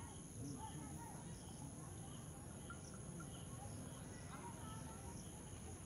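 A steady, high-pitched chorus of insects, trilling without a break, over a low rumble and faint distant voices.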